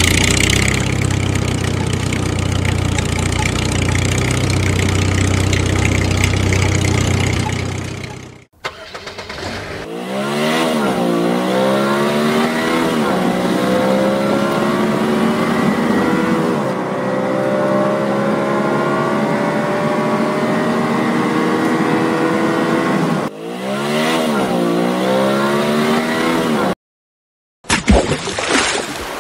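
An engine runs steadily at a low pitch for about eight seconds, then breaks off. After a short gap a car engine revs up through the gears: its pitch climbs and drops back at each shift, then climbs slowly for several seconds. The sound cuts out briefly near the end.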